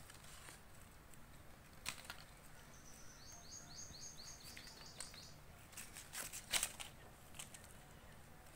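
Sharp snaps and clicks as leaves and twigs are stripped and cut from a lemon branch with fingers and a small knife, the loudest about six and a half seconds in. A bird sings faintly in the background, a quick trill of about ten short falling notes from about three to five seconds in.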